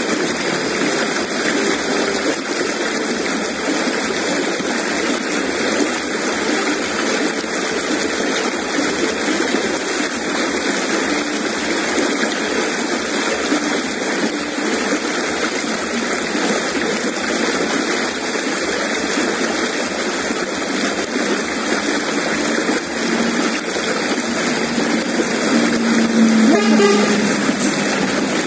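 Shallow river rushing steadily over rocks and stones. Near the end a brief low hum joins it.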